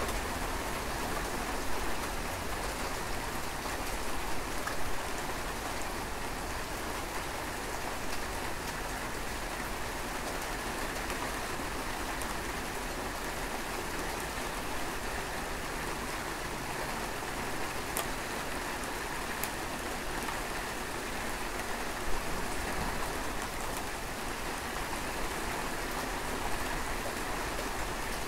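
Steady rain falling, an even continuous patter with a few sharper drop ticks here and there.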